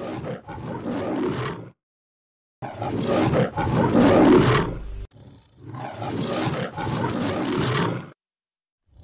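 The MGM logo's lion roar, heard three times in a row as one logo version cuts to the next. Each roar lasts two to three seconds, with short silences between, and the middle one is the loudest.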